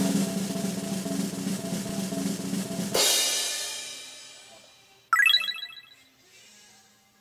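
Sound-effect snare drum roll for about three seconds, ending on a cymbal crash 'ta-da' that rings out and fades. About five seconds in, a short bright chiming effect follows.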